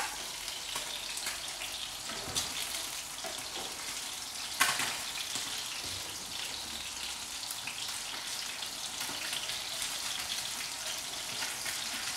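Sea bream fillets sizzling steadily as they pan-fry in oil in a non-stick pan, the skin still stuck to the bottom before the flip. A sharp knock of a utensil against the pan about four and a half seconds in, and a lighter one a couple of seconds earlier.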